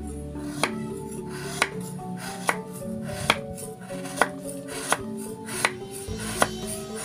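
Kitchen knife chopping a lump of palm sugar on a wooden cutting board: eight sharp knocks, a little under one a second, over background music.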